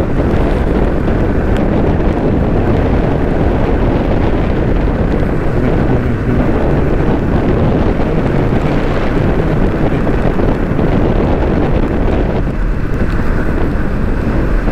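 Steady wind rush on the microphone of a moving motorcycle, with vehicle noise under it.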